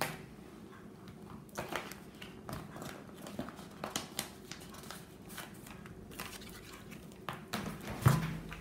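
Plastic folder sleeves and paper nail-decal sheets rustling and clicking as they are handled, in scattered short sounds over a faint steady hum, with a louder knock about eight seconds in as a sheet is set down on the table.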